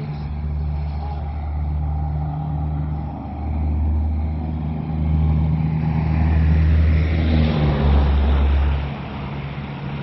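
Light aircraft engine droning, with a deep rumble that swells and fades in waves and drops away near the end.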